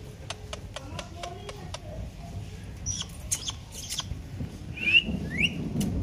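Indian ringneck parakeets giving soft, low chatter with scattered sharp clicks, then two quick rising whistles about five seconds in, the loudest sounds here.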